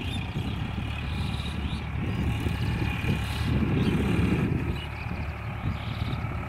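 Eicher 551 4WD tractor's diesel engine running steadily, its drone swelling and easing slightly.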